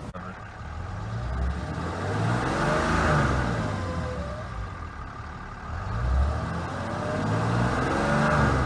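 6.7L Cummins diesel engine of a 2012 Ram 3500 speeding up and easing off twice, with a whine that rises and falls along with the engine speed: the strange whine that comes every time the truck accelerates.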